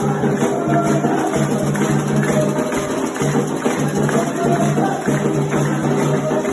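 Candomblé ritual music: drums and struck and shaken percussion playing a steady rhythm, with held low notes repeated in short phrases.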